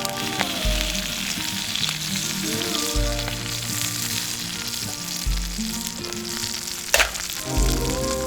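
Food frying in a pan with a steady sizzle, with one sharp click about seven seconds in.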